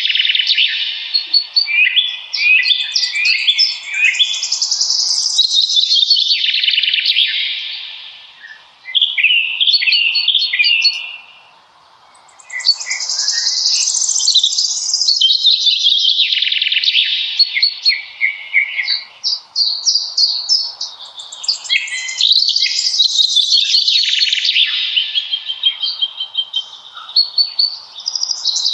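Songbirds singing in a forest: long, rapid warbling phrases of quick chirps and trills, with a couple of short pauses between songs.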